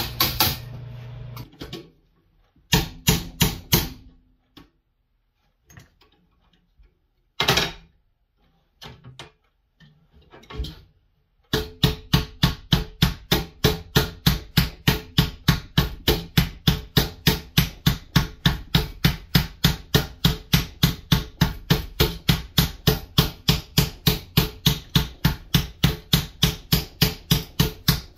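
Hand hammer peening rivets on a metal tractor final-drive backer plate, with sharp metallic strikes. A few scattered blows come first with pauses between, then about eleven seconds in a fast, steady run of blows at about four a second.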